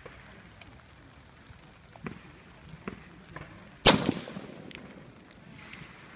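A single close rifle shot from a CZ 750 bolt-action rifle in .308 Winchester (7.62 mm), about four seconds in, with a short ringing tail. A few faint sharp ticks come before it.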